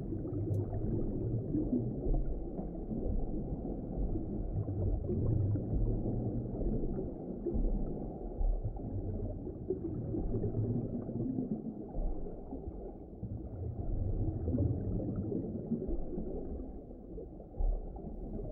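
Low, muffled underwater ocean ambience: a steady, rumbling wash of water with a faint wavering moan in it.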